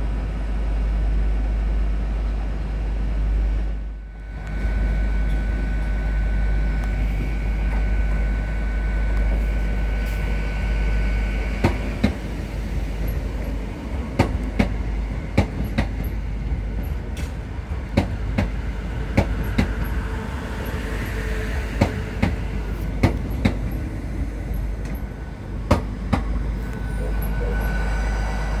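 A train moving slowly over the track, with a steady low rumble and a high whine. From about twelve seconds in, irregular sharp clicks of wheels over rail joints and points join in.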